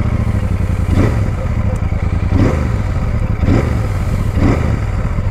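Royal Enfield Super Meteor 650's 648 cc parallel-twin engine idling through its stock exhaust, freshly started. Four short throttle blips come about once a second.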